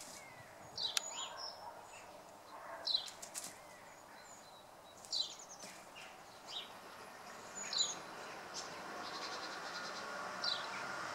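A bird calling repeatedly outdoors, short high calls that fall in pitch, one every two to three seconds. Near the end a vehicle's engine and tyre noise is heard approaching, growing steadily louder.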